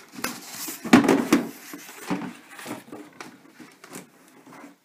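Styrofoam packing and a cardboard box being handled as a controller is worked out of them: a run of knocks and rubbing, loudest about a second in, thinning out toward the end.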